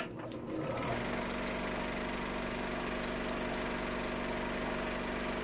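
A film projector running: a click as it starts, then a steady mechanical whir with hiss and a constant hum.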